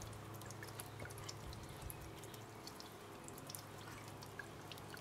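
Water from a small hippo-shaped solar fountain spouting in thin jets and splashing back onto pebbles: faint, scattered drips and splashes over a steady low hum.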